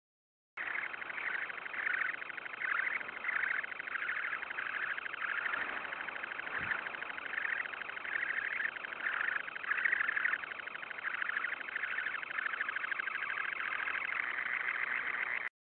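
Semipalmated sandpiper calling constantly: a continuous high trill that pulses rapidly in loudness. It is the returning parent's 'please leave' display to its incubating mate at the nest.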